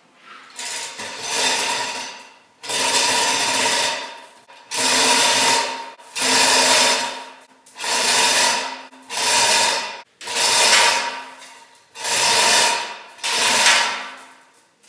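Hand chain hoist being pulled to lower a heavy load: about nine pulls of the hand chain, each a rattle of chain running through the hoist lasting about a second, in a steady rhythm.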